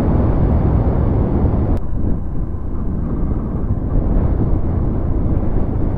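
Wind buffeting the microphone of a moving motorcycle, mixed with riding noise, a steady low rumble. There is a single faint click about two seconds in.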